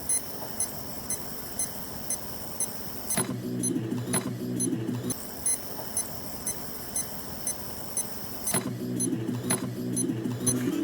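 Background music in a sparse section: a light ticking beat about twice a second over a thin high held tone, with the fuller lower part dropping out and coming back twice.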